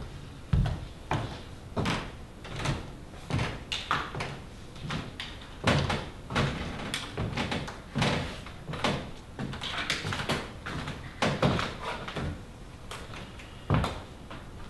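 Footsteps across hollow wooden stage platforms at a walking pace, each step a dull wooden knock, with one louder knock near the end.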